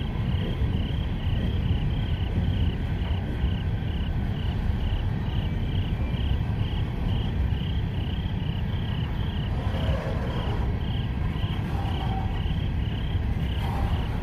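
Freight train's open-top hopper cars rolling past, a steady low rumble of steel wheels on rail. Above it an insect chirps steadily, about two to three chirps a second.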